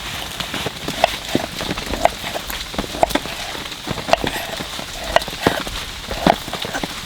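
Rain dripping: irregular drops plinking and tapping on a surface, a few every second, over a steady rain hiss.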